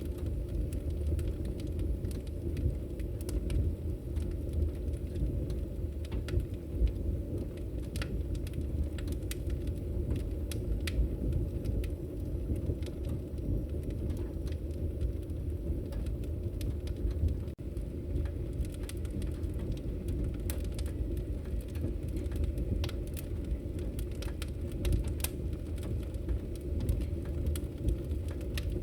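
Logs burning in a fireplace: a steady low rumble of flame with scattered sharp crackles and pops throughout, broken by a momentary dropout a little past halfway.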